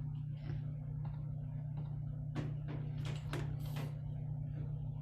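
Steady low electrical hum from the sound setup, with a few short clicks and rustles of handling about halfway through.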